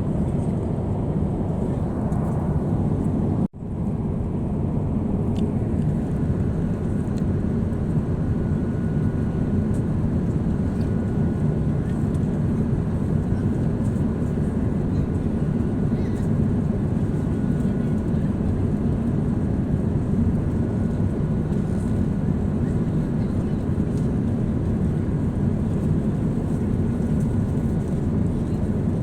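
Steady low cabin noise of a jet airliner in flight, engines and airflow heard from inside the cabin, broken by one very brief dropout about three and a half seconds in.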